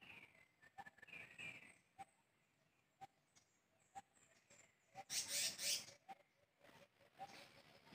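Quiet forest with a few short bird chirps and soft clicks about once a second over a faint high insect-like tone; about five seconds in, one loud rustling burst just under a second long.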